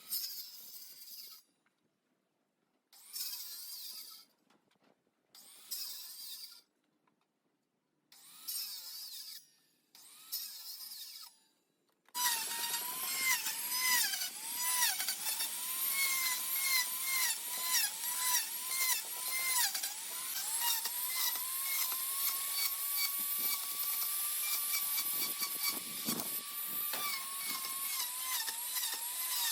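Power tool working wood: a few short bursts with silences between, then from about twelve seconds in a continuous motor whine whose pitch dips repeatedly under load, with rapid ticking.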